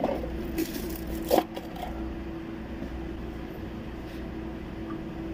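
Short scrapes and handling noises, about half a second and a second and a half in, as a new oil filter is screwed on by hand, over a steady background hum.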